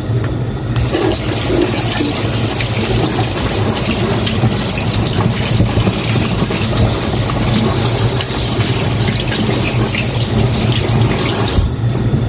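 Liquid running or pouring steadily. It starts just under a second in and stops suddenly near the end.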